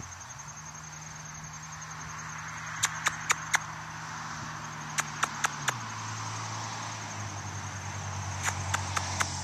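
Insects trilling steadily in a field, over a low engine hum that drops in pitch about six seconds in. Three runs of four quick, sharp clicks stand out above the trill, about 3, 5 and 9 seconds in.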